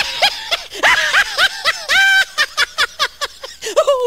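High-pitched laughter in a fast run of short rising-and-falling 'ha' notes, with one longer held note about two seconds in; it is laid over the lion as his 'laugh' and is not a lion's call.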